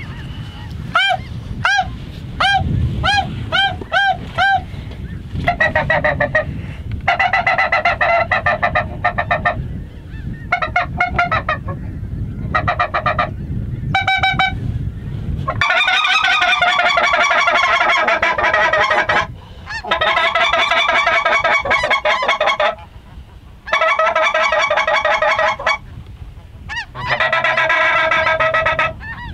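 A flock of geese calling in flight: a run of short, high, rising honks, then many birds honking over one another in loud stretches that break off and start again.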